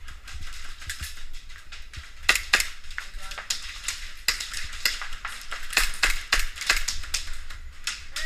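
Airsoft gunfire during a game: a rapid, irregular run of sharp cracks and snaps from guns firing and BBs hitting, loudest a little after two seconds in and again around six seconds.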